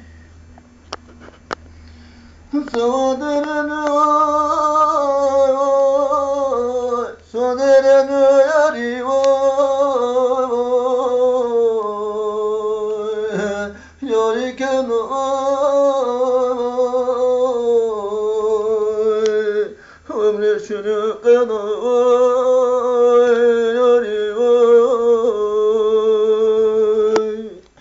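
An elderly man singing unaccompanied: long, drawn-out, wavering phrases, four of them with short breaths between. The singing starts a few seconds in.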